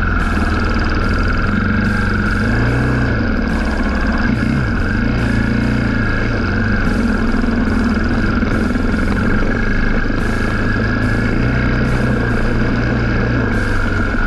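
KTM 500 XCF-W dirt bike's single-cylinder four-stroke engine running steadily on a trail ride, its revs rising and falling briefly a few times in the first five seconds.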